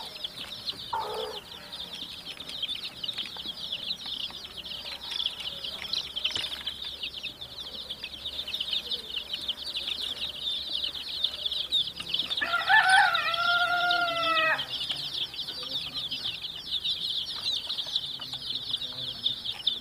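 A large flock of baby chicks peeping constantly, many high, short peeps overlapping. About twelve seconds in, a single louder, lower drawn-out call lasts about two seconds.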